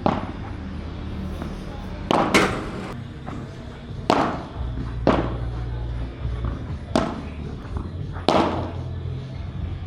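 Padel rally: the ball is struck by rackets with sharp pops, about seven hits at uneven intervals of one to two seconds, two of them in quick succession.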